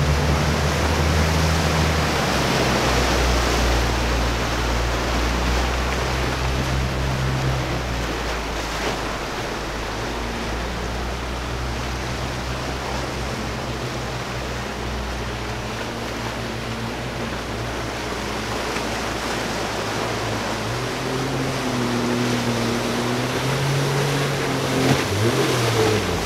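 Jet ski engine running over the rush of breaking waves and spray in rough water, its pitch rising and falling in the last few seconds as the throttle changes.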